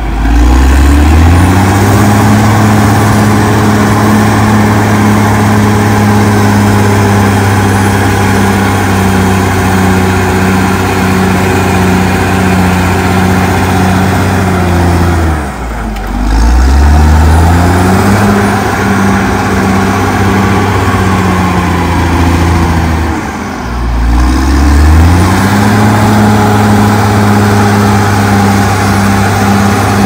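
Caterpillar D6R XL bulldozer's diesel engine running steadily under load while pushing soil. About halfway through and again about three-quarters through, the revs drop briefly and climb back up.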